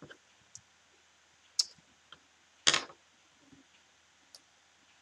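A few scattered short clicks and ticks over quiet room tone, the loudest and sharpest a little under three seconds in.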